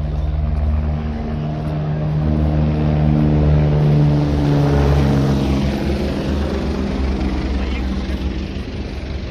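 Helicopter flying past overhead, its engine and rotor growing louder to a peak a few seconds in, then dropping in pitch and fading as it moves away.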